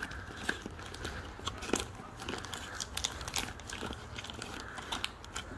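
Hands working a cardboard bulk-oil box to pull out its pour-spout neck tab: irregular small cracks, scrapes and crinkles of cardboard and plastic.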